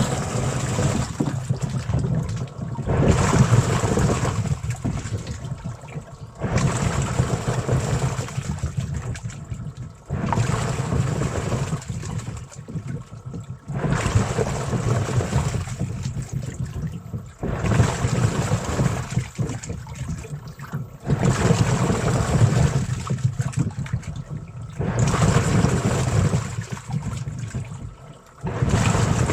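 Washing machine churning water and a load of taro, in surges that start about every four seconds.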